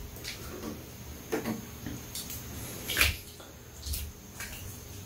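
Metal spoon scraping and digging at ice cream in a paper tub, with a few short, sharp knocks, the loudest about three seconds in.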